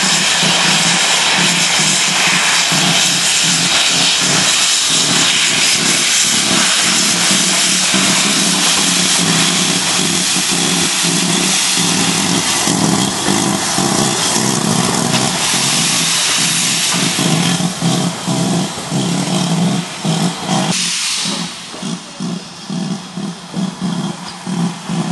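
Steam locomotive moving off slowly with its cylinder drain cocks open: a loud, steady hiss of escaping steam over regular exhaust beats. About 21 s in the hiss drops away and the chuffs stand out as separate pulses.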